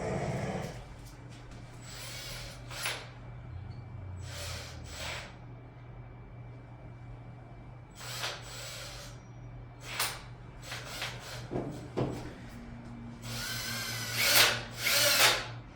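A power drill working into the wall in several short bursts, the longest and loudest near the end.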